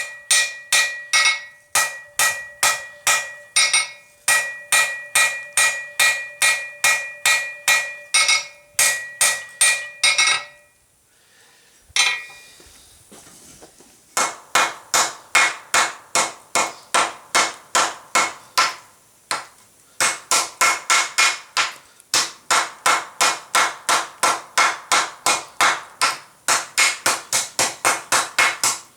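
Hand hammer striking steel flat bar on an anvil, about two to three blows a second, as the bar is forged into shape. For the first ten seconds each blow leaves the anvil ringing. After a short pause broken by one blow, the hammering resumes steadily with a duller tone.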